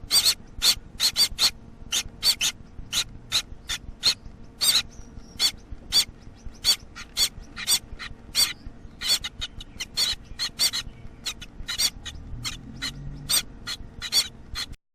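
Baby Gouldian finches calling: short, high calls repeated quickly in an uneven run, about three or four a second. The calls stop abruptly near the end.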